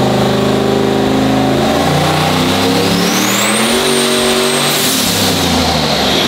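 Turbocharged Chevrolet pickup engine revving hard under load while strapped down for a dyno tune. A high whistle climbs and holds about three seconds in, then a rush of air near five seconds as the revs fall away.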